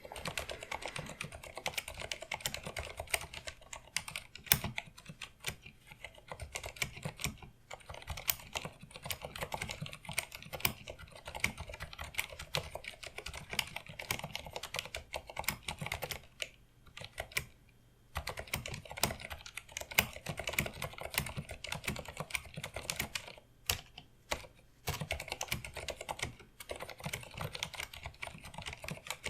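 Filco Majestouch 2 mechanical keyboard with Cherry MX Pink silent linear switches being typed on at a fast, continuous pace, a dense run of soft keystrokes with a few brief pauses, the longest about 17 and 24 seconds in.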